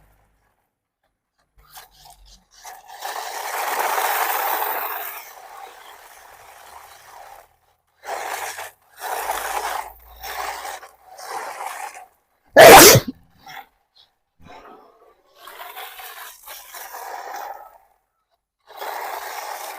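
Irregular bursts of scraping and crunching on rough ground, with one short, very loud knock about thirteen seconds in.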